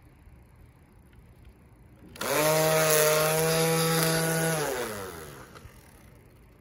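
Ferrex battery-powered string trimmer starting suddenly about two seconds in and running at a steady whine for a couple of seconds, spinning its nylon cutting line. It then winds down, the pitch falling as the motor coasts to a stop.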